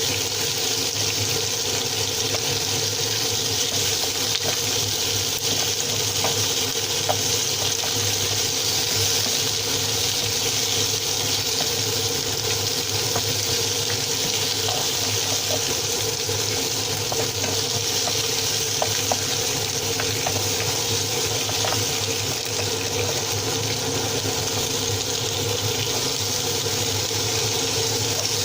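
Oxtail pieces frying in oil and melted sugar in a pan, a steady sizzle with faint scattered crackles, over a steady low hum.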